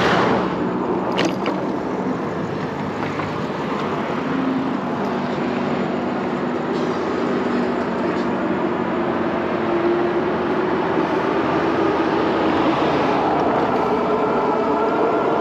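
Steady rushing road noise from riding an e-bike along a roadside sidewalk, with passing traffic mixed in; a car goes by close at the very start.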